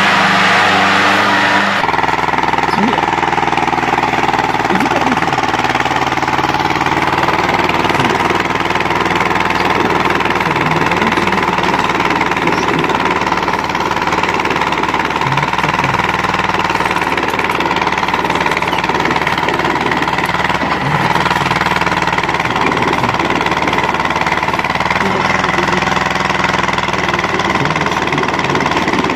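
Red Ursus tractor's diesel engine running at a steady, even pace. The first two seconds are a noisier stretch of a different tractor scene before it.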